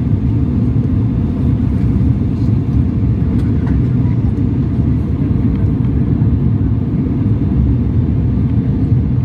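Aircraft engines and airflow heard from inside the aircraft during the climb after takeoff: a loud, steady low rumble.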